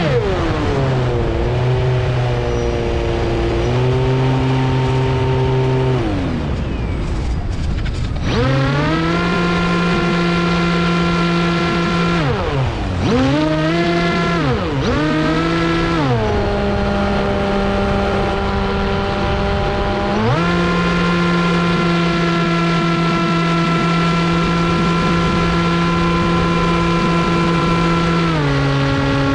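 RC plane's electric motor and propeller whining in flight, its pitch stepping up and down with throttle changes. It drops out for a couple of seconds about six seconds in, leaving a rushing noise. A pair of quick dips and recoveries follow, then long steady stretches at high and lower power.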